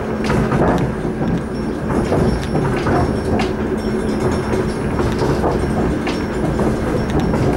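Suburban train running at speed, heard from inside the carriage: a steady rumble with a low hum, and the wheels clicking sharply over rail joints every second or so.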